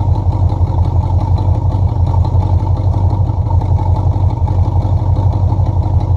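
Chevy small-block V8 idling with a steady, evenly pulsing exhaust note.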